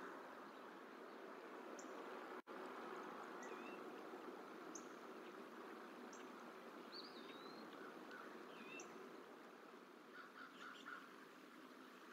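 Faint outdoor ambience from the nest cam's microphone: a steady background hiss with scattered short, high chirps and whistles of small birds, and a few quick calls near the end. The sound drops out for an instant about two seconds in.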